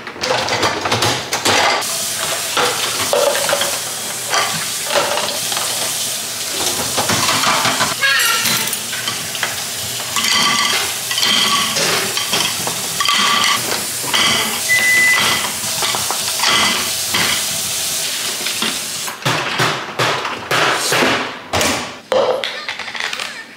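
Dishes and cutlery clattering as a dishwasher is unloaded: plates, bowls and utensils clink against each other and the wire racks, with short ringing clinks among the clatter. Near the end there are a few separate knocks as a plastic cup and its lid are handled.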